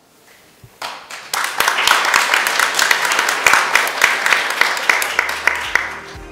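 Audience applauding, starting about a second in and thinning near the end, when low outro music fades in underneath.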